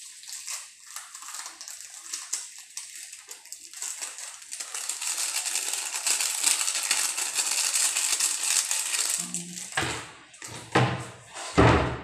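Kitchen food-preparation handling sounds: a crackling, rustling hiss that grows louder, then several heavy knocks on the counter near the end.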